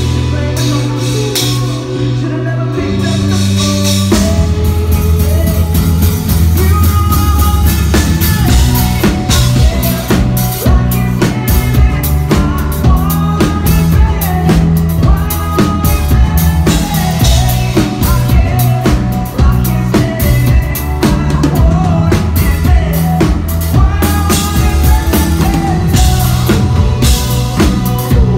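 Live band playing a song, led by a full drum kit with bass drum and snare hits, over bass and other instruments with singing; the drums come in fully about four seconds in.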